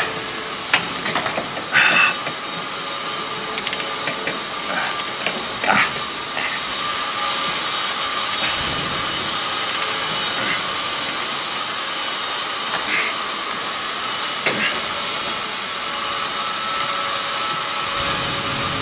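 Machine-shop noise: a steady hiss of running machinery and metal grinding with a steady whine under it, and a few sharp clanks of metal, the loudest about two seconds in.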